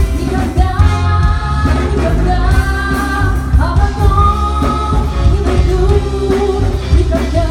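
Live band playing a pop-rock song over a heavy bass, with a singer holding long notes.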